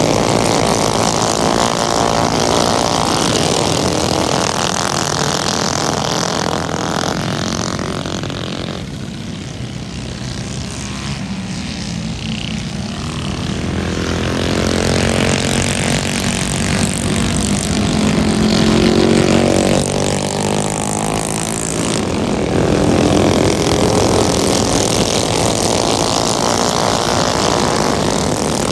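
A pack of racing mini bikes, their small engines running hard at speed. The sound drops off about a third of the way in and swells again past the halfway point, with the engine notes sweeping up and down as the bikes go by.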